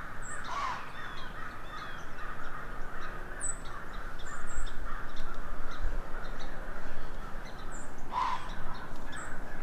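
A flock of American crows cawing together in a steady chorus, with short high chirps of small songbirds scattered through it.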